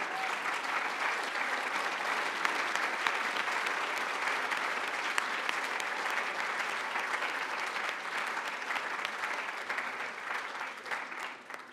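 A large audience applauding steadily, with the clapping dying away near the end.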